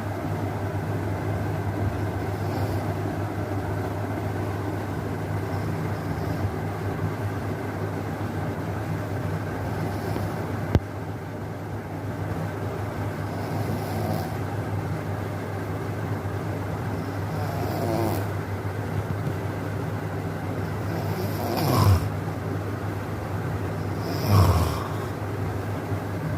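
A sleeping person snoring over a steady low drone, with three louder snores that fall in pitch in the last third. A single sharp click about eleven seconds in.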